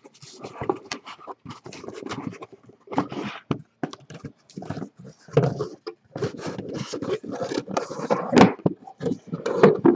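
Cardboard trading-card hobby boxes being handled and slid against each other: irregular scrapes, rubs and light knocks, with one sharper knock near the end.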